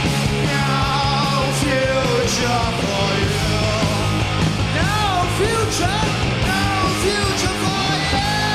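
Live punk rock band playing loud, with distorted electric guitar, bass and drums and a yelled vocal; pitches bend up and down partway through, and near the end a chord is held.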